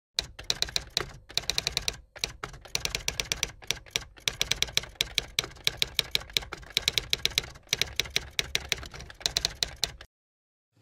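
Typing sound effect: runs of rapid key clicks with short pauses between them, stopping abruptly about a second before the end.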